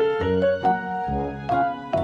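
Background music: a melody of short notes over a bass line.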